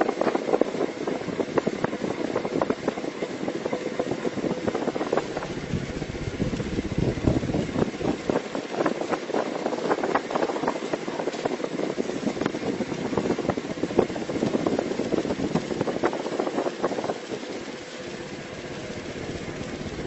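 Ceiling fan serving as a model helicopter's rotor, running with a steady, rattly mechanical clatter. Near the end it eases to a quieter, steadier hum.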